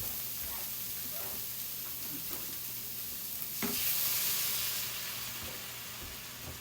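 Browned ground beef with taco seasoning sizzling in a frying pan while it is stirred, with light scraping. About three and a half seconds in the sizzle jumps louder as a little water goes into the hot pan, then settles.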